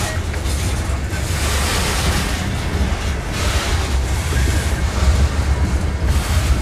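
Freight train's covered hopper cars rolling past close by: a steady, loud rumble of steel wheels on rail, with a rushing noise that swells and fades several times.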